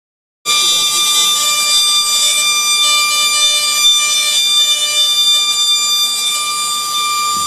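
Handheld high-speed electric milling handpiece whining steadily at a fixed pitch, with a gritty hiss, as its burr cuts into a white block; the sound cuts in abruptly about half a second in.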